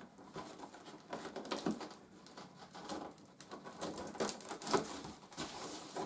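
Cardboard box being opened by hand: small nail scissors working through the packing tape and the cardboard flaps being pulled open, an irregular run of scratching, scraping and rustling. The sharpest scrape comes about three quarters of the way through.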